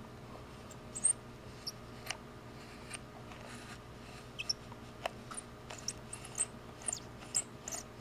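Rotary function switch of a ZT102 multimeter turned slowly by hand, giving scattered faint high squeaks and small clicks. The knob is tight and squeaking after 50,000 test cycles on the switch.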